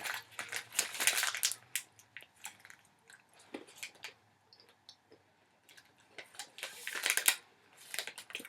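Close-up crunching and chewing of jalapeño cashews: a dense run of crisp crunches at first, sparser crunches in the middle, and another burst of crunching about seven seconds in.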